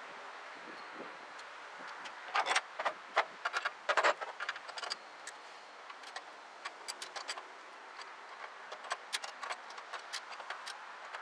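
Metal hand tools clicking and clinking on the carburetor mounting as it is unbolted from the truck's engine, in irregular sharp ticks with a busier run of clinks a few seconds in.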